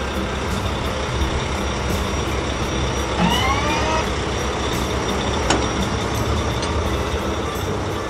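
Wheel loader's diesel engine running steadily as it drives and digs, with a short rising whine about three seconds in and a sharp click a couple of seconds later.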